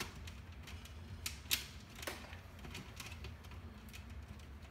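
Irregular light clicks and taps as stiff copper house wiring and its connectors are pushed and jammed into the wiring channel of an under-cabinet LED light fixture.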